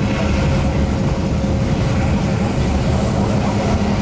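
Clyde-built Da class diesel-electric locomotive running under load with a steady engine drone as the train climbs, over the rumble of the train on the rails.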